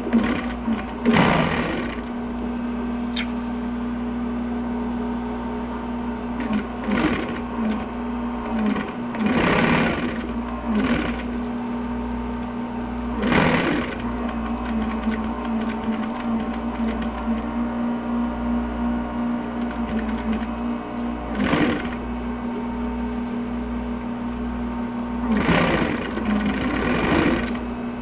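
1962 Singer 111W155 compound walking-foot upholstery sewing machine stitching vinyl in a series of short, fast bursts. Between the bursts its clutch motor keeps spinning with a steady hum.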